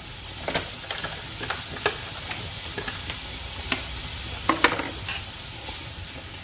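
Diced smoked pancetta frying in a little oil in a pan, sizzling steadily with scattered sharp crackles and clicks, the loudest a quick pair about four and a half seconds in.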